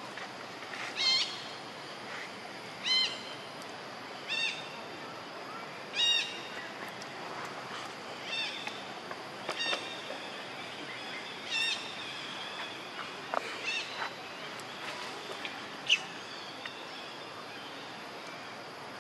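A series of short, high-pitched animal calls, each a quick rise and fall in pitch, repeating every couple of seconds over a steady outdoor hiss. The calls thin out in the second half, with one sharp call near the end.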